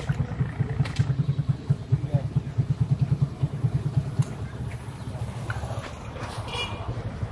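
An engine chugging with a fast, even, low beat, easing off a little about four seconds in.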